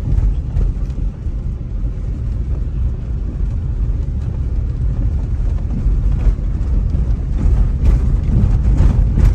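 Steady low rumble of a car driving on the road, engine and tyre noise heard from inside the moving vehicle.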